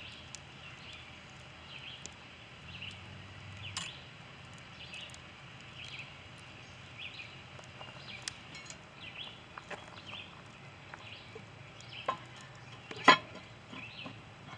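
Outdoor ambience with small birds chirping throughout, and a few sharp clicks or knocks, the loudest about a second and a half before the end.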